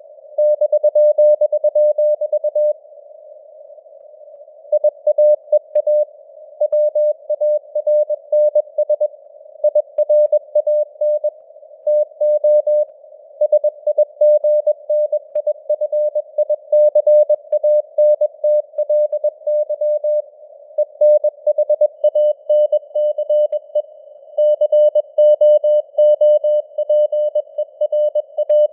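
Morse code (CW) sent at 21 words per minute as a single steady tone of about 600 Hz, keyed in quick dots and dashes with longer pauses between words. Faint simulated radio noise hisses around the tone, as if copying a real signal on the air.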